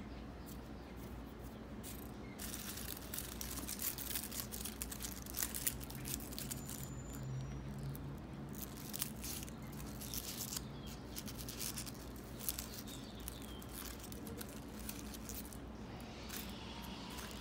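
Dried rose petals and leaves crackling and crinkling as a hand squeezes and crumbles them: a dense run of dry crackles starting about two seconds in and thinning out near the end.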